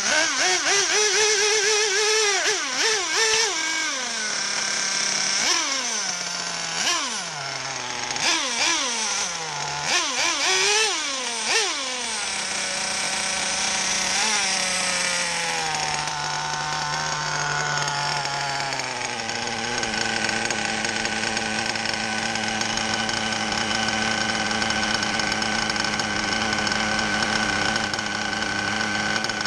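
A Hyper .28 nitro RC engine running, revved up and down in about five quick blips of the throttle, then dropping to a steady idle while its three-needle carburettor is tuned.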